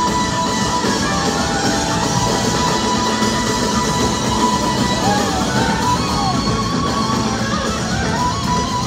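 Live blues-rock band playing, with electric guitar to the fore over drums, heard from the audience. A lead line bends up and down in pitch about halfway through.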